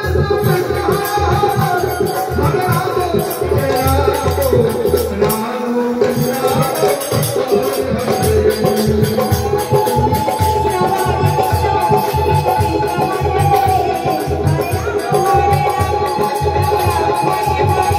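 Devotional naam kirtan music: a woman singing long held notes over a hand drum and jingling percussion that keep a steady beat.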